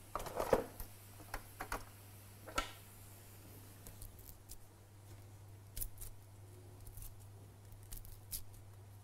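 Kitchen utensils and cookware clicking and knocking: a quick cluster of sharp knocks about half a second in, a few more soon after, then sparse light taps, over a faint steady low hum.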